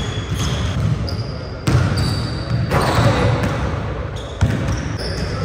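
Basketballs bouncing on a hardwood gym floor: three sharp bounces, spaced about one to two seconds apart.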